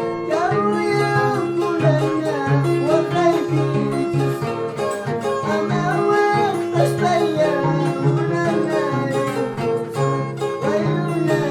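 Peruvian harp music: the harp plucking a steady repeating bass and chord pattern, with a high wavering melody line over it.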